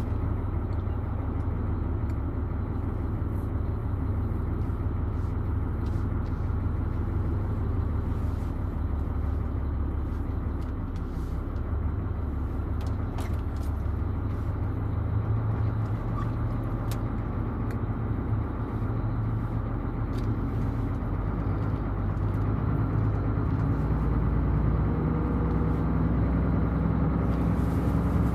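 Mercedes-Benz Actros truck's diesel engine heard from inside the cab while driving, a steady low drone. About two-thirds of the way through its note rises and it gets a little louder as the truck accelerates.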